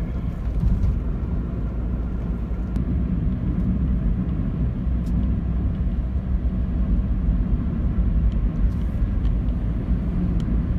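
A car driving at speed, heard from inside the cabin: a steady low rumble of road, tyre and engine noise.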